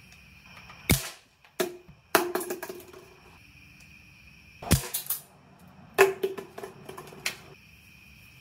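Mock gunfire: sharp, gunshot-like bangs, some single and some in rapid rattling strings, in about three bursts.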